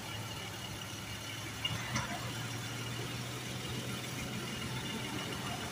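Toyota Fortuner's engine idling steadily, left running for the automatic transmission's fluid level check. Two short clicks come about two seconds in.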